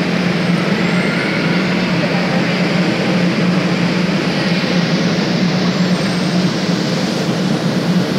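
Steady mechanical hum and rushing noise of cable-car station machinery running, with a strong low drone at an even level throughout.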